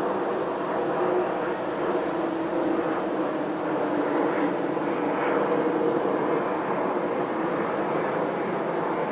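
Steady drone of distant engine noise with a faint pitched hum in it, even in level throughout.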